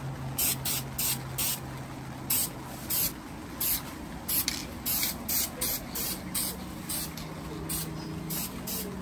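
Aerosol can of Dupli-Color molten red spray paint hissing in short, quick bursts, about two a second, as coats are sprayed onto a metal control arm.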